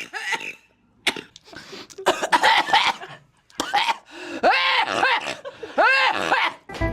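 A woman coughing in a series of harsh bursts, broken up by several short, high-pitched cries that rise and fall in pitch. Music starts right at the end.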